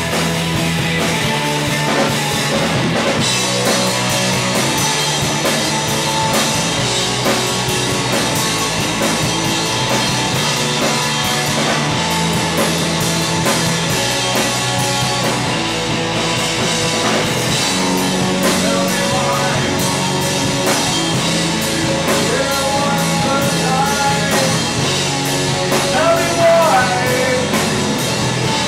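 Three-piece rock band playing live through amplifiers: electric guitar, electric bass and drum kit, with drums struck in a steady beat.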